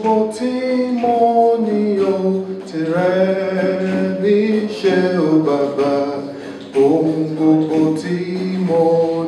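A man singing a traditional Yoruba song a cappella, with no instruments, in long held phrases.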